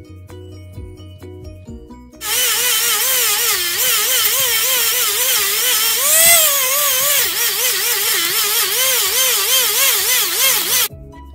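Handheld electric die grinder with an abrasive bit grinding into a dry wooden root. The grinding starts about two seconds in as a high whine that wavers up and down in pitch, then cuts off near the end. Background music plays before and after it.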